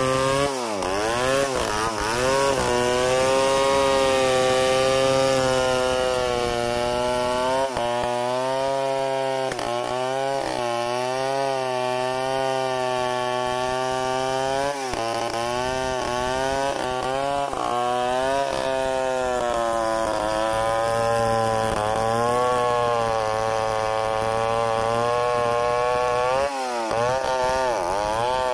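Stihl 070 two-stroke chainsaw at high revs, ripping lengthwise along the grain of a large hardwood log. The engine's pitch wavers as the chain loads in the cut and drops sharply then recovers about four times.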